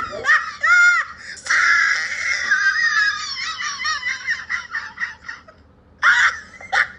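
High-pitched shrieking laughter from a person, with long held squeals and short rising-and-falling whoops. It fades over a few seconds and bursts out again near the end.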